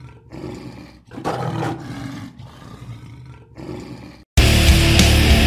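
Lion roar sound effect, three long roars in a row, the last one fading away. About four seconds in, loud heavy rock music cuts in suddenly.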